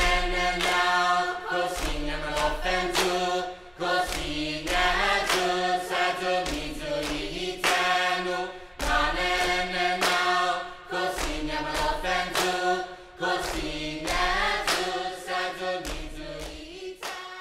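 A group of voices chanting in harmony, with sharp percussive beats between phrases. It fades out near the end.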